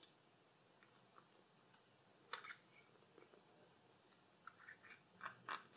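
Faint scattered metal clicks and ticks as an M6 HeliCoil insert is wound by its installation tool into a freshly tapped bolt hole. One sharper click comes about two seconds in, and a quick cluster of clicks near the end.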